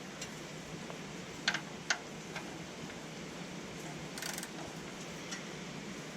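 Hand tools working on metal under a car: two sharp metallic clicks close together, a short rasp a few seconds later and a few light ticks, over a steady hiss.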